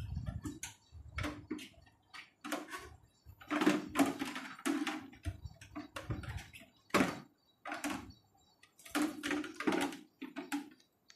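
Plastic Hasbro Black Series Darth Vader helmet rubbing and scraping as it is worked down over a head and pressed into place by hand, in a string of short, uneven bursts of friction and handling knocks. It is a tight fit.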